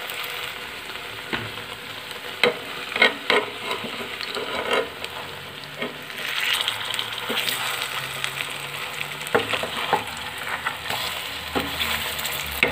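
Buckwheat-flour and potato tikkis shallow-frying in ghee in a metal pan with a steady sizzle. A metal spatula scrapes and knocks against the pan several times as the patties are turned.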